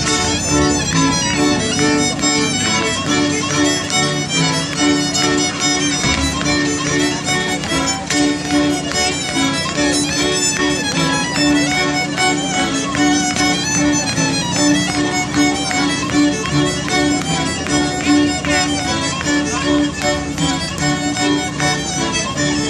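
A folk string band playing a lively tune, with fiddles carrying the melody over a steadily pulsing low accompaniment note.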